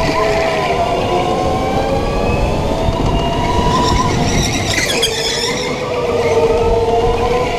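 Go-kart tires squealing on the concrete floor through the corners over the kart's running noise: a wavering, high squeal that slides in pitch and shifts about five seconds in. It is the squeal of tires scrubbing in a kart that is pushing (understeering) badly.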